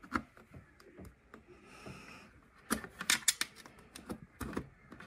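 Scattered small clicks and scrapes of a USB memory stick being felt along and pushed into the ports on the back of an iMac, with a quick run of clicks about three seconds in and a couple more near the end.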